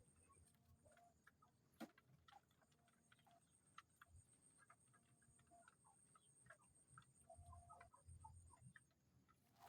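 Near silence, with faint scattered clicks and ticks, one a little sharper about two seconds in, over a faint, thin, high, evenly pulsing whine that stops near the end.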